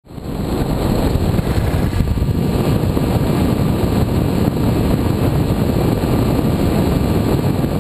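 Steady rush of wind over the microphone of a camera mounted on a Skywalker FPV plane in flight, mixed with the drone of its brushless electric motor and propeller. It fades in at the start.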